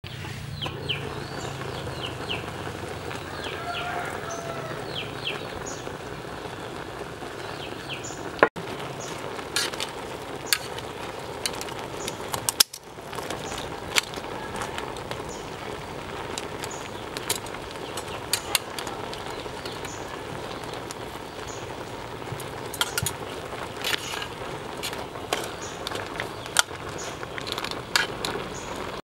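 Wood fire crackling under a cooking pot: scattered sharp snaps over a steady hiss, with a few short bird chirps in the first few seconds.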